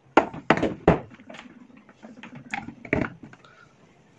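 Sharp handling clicks and knocks as plugs and a USB charging cable are connected to a modular switchboard with USB charger sockets. There are three quick clicks in the first second, then a couple more a little before three seconds in.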